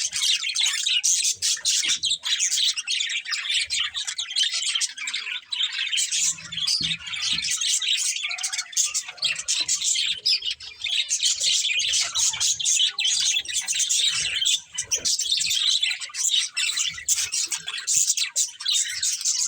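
Several budgerigars chirping and chattering, a busy, continuous stream of high chirps.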